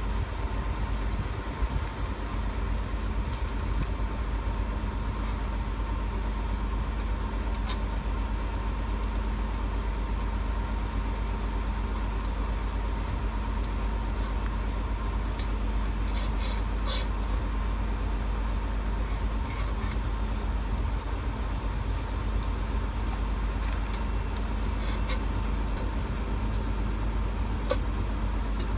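Steady engine hum at an even level, with constant tones running through it, and a few faint, sharp clicks scattered over it.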